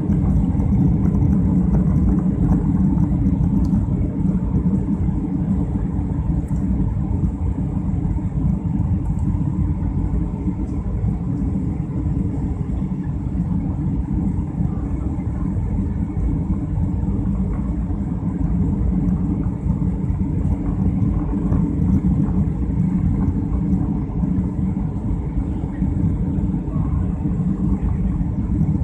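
Steady low rumble of a jet airliner's engines and airflow heard inside the passenger cabin during the descent to land.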